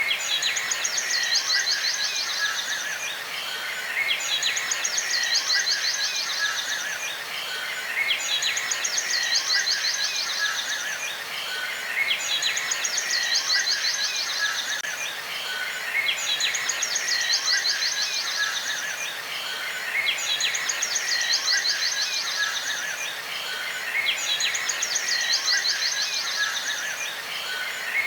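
Birdsong: a rapid high trill of about two and a half seconds that comes back every four seconds in an identical pattern, over a bed of softer chirps.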